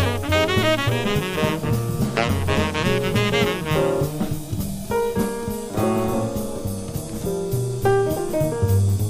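Small-group jazz recording: tenor saxophone with a wavering vibrato tone over piano, walking bass and drums, a quartet playing a medium-tempo ballad arrangement.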